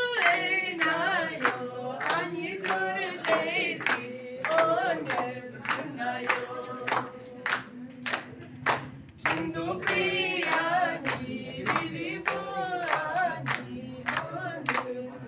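A group of voices singing together, accompanied by steady rhythmic hand clapping at about two claps a second.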